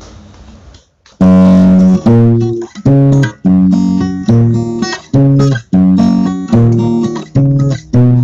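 Background music: a plucked guitar striking a chord about once a second, coming in about a second in after a faint hiss.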